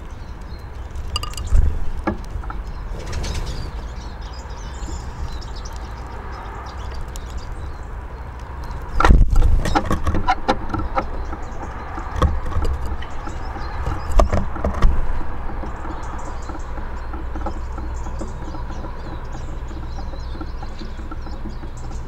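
Small birds at a wooden feeder: scattered sharp taps and knocks, clustered about halfway through, over a steady low rumble.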